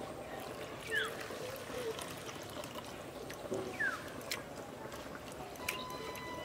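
Coconut water trickling from a bowl onto grated coconut in a steel bowl, with a hand squeezing and squelching the wet coconut to press out coconut milk; faint.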